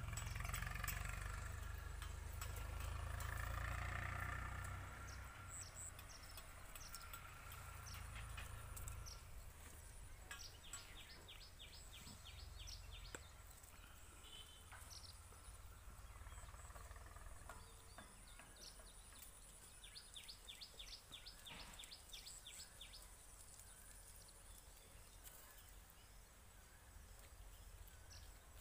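Faint rural outdoor ambience: a low rumble in the first few seconds that fades away, then a bird calling in quick runs of short, high chirps, about four a second, twice.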